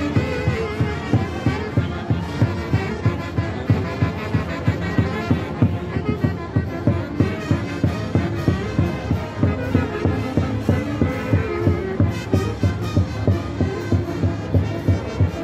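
Live band music: wind instruments holding a melody over a steady drumbeat of about three beats a second.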